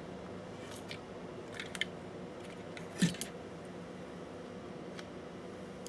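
A few light clicks and knocks from working a cordless hot glue gun over a circuit board on a rubber work mat, the loudest about three seconds in, over a steady low hum.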